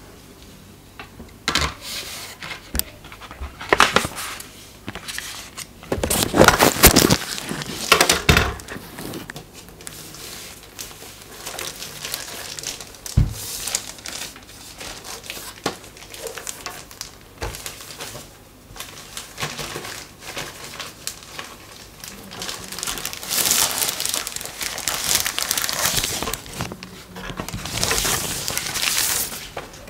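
Thin plastic packaging wrap crinkling and rustling in irregular bursts as it is handled and pulled off a bathroom scale, with an occasional knock.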